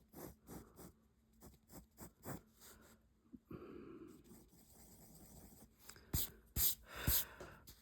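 Pencil drawing on paper: a run of short pencil strokes, a longer continuous stroke through the middle, and a few louder strokes near the end.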